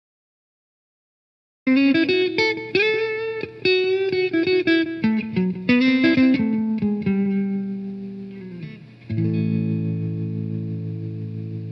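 Silence for under two seconds, then guitar music: a run of quick picked notes with bends, then a held chord from about nine seconds in that slowly dies away.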